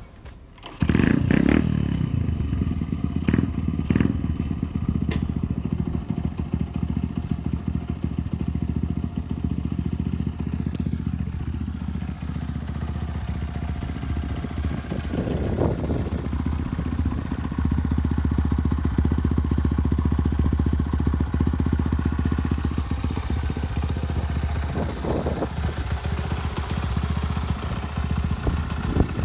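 Honda CT70 Trail 70's small single-cylinder four-stroke engine, fitted with an 88cc bore kit, catching about a second in and then idling steadily through its new aftermarket exhaust, its pitch briefly rising twice later on.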